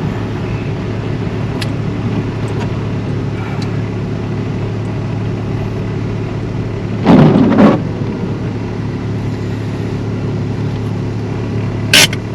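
Vehicle engine running steadily, a low even drone heard from inside the four-wheel-drive cab. A brief louder sound comes about seven seconds in, and a sharp click near the end.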